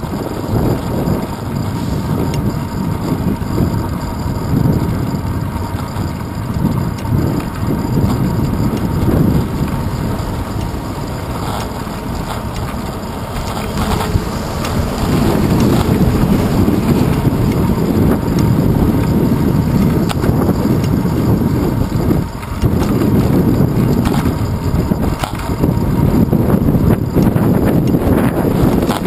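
Wind buffeting the microphone of a handlebar-mounted GoPro Hero 2 on a moving bicycle, a steady low rumble mixed with road noise and jolts from the pavement. The rush grows louder about halfway through.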